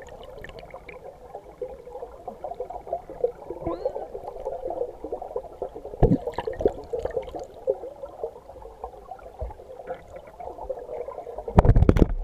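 Water gurgling and babbling, a dense, irregular churn, with a sharp knock about halfway through and a loud low rumble near the end.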